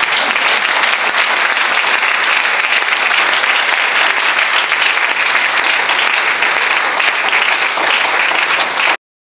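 Audience applause, a dense, steady clapping of many hands that cuts off suddenly near the end.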